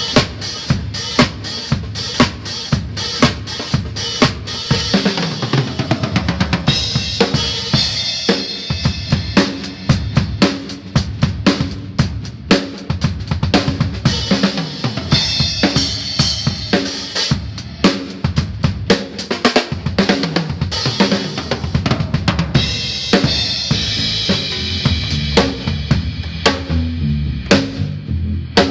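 Live drum kit playing a steady rock beat on bass drum, snare and cymbals, with an electric guitar playing along, during a band soundcheck. The cymbals drop out briefly near the end.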